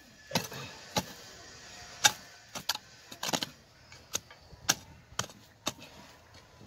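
Short-handled hoe chopping into hard, dry, stony soil in a run of sharp strikes, about ten of them roughly half a second apart. The strikes stop about a second before the end.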